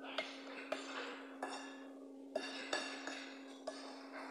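A metal spoon clinking and scraping against a ceramic bowl during a meal, about six sharp clinks, over a steady low hum.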